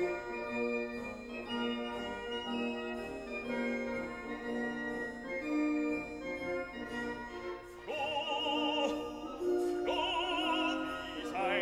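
Background music: sustained held chords, joined about eight seconds in by a classical singing voice with a strong wavering vibrato.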